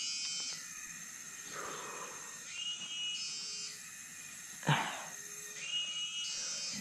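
Tropical forest ambience: insects buzzing in a high, steady drone that swells and drops away in stretches, with a short high chirp repeating. About two-thirds of the way through, a brief loud call sweeps sharply down in pitch.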